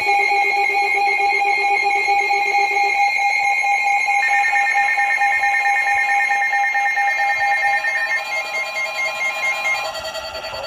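Electronic emergency alert tones from several devices sounding together: steady beeping tones that overlap and shift in pitch as one tone stops and others join, with a warbling tone near the end.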